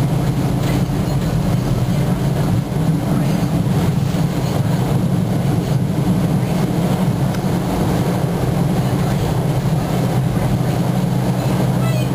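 A moving passenger train heard from inside the carriage: a steady low rumble of wheels on rails and the rolling car.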